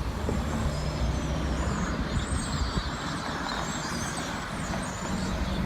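Road traffic running by: a steady rush of vehicle noise with a low engine hum, and faint high bird chirps over it.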